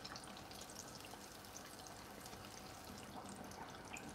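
Faint sizzling of battered fish deep-frying in hot oil: a steady hiss scattered with small crackles.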